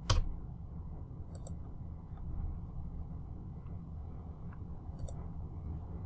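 Clicks from a computer mouse and keyboard in use: one sharper click right at the start, then a handful of fainter clicks spread over the next few seconds, over a low steady hum.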